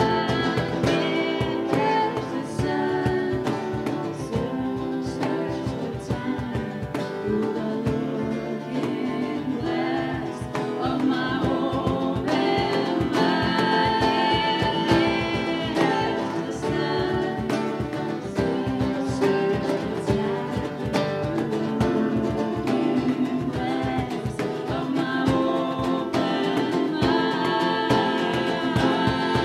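Live acoustic folk song: two acoustic guitars strummed, a cajon keeping the beat, and women's voices singing together.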